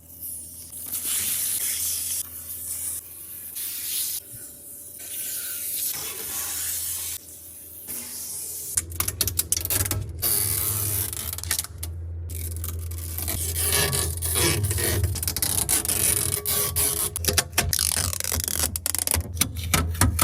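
Plastic packaging rustling and crinkling as items are unwrapped and handled. First come separate hissing rustles about a second long, then from about nine seconds in denser crackling with many quick clicks and taps.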